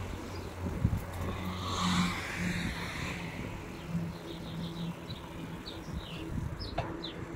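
A car passes on the road alongside, its tyre and engine noise swelling and fading about two seconds in, over wind rumble on the microphone of a moving bicycle. From about halfway on, small birds chirp in short, high notes.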